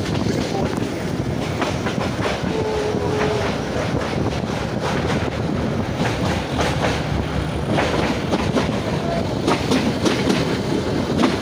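Narrow-gauge toy train of the Kangra Valley line in motion, heard from aboard: a steady rumble of the running coaches with the clickety-clack of wheels over rail joints throughout.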